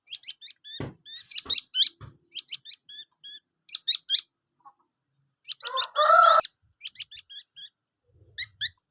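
A fledgling songbird chirping in quick runs of short, high, down-slurred notes, with a longer, harsher rasping call about six seconds in. A few soft knocks come in the first two seconds.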